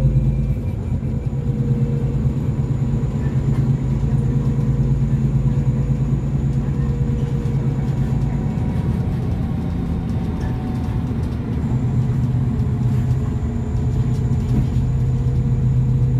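Scania N280UB city bus's compressed-natural-gas engine running, heard from on board as the bus drives. It is a steady low engine rumble that eases briefly about a second in and again around eleven seconds before picking up.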